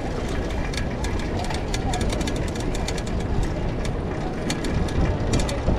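Fixed-gear bicycle rolling over cobblestones: a steady low rumble from the tyres, with irregular rattling clicks as the bike jolts over the stones.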